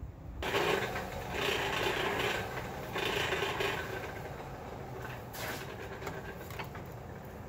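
Coal forge running under forced air: a steady mechanical whir and rush of the blown fire that starts suddenly about half a second in. A few light knocks come near the end.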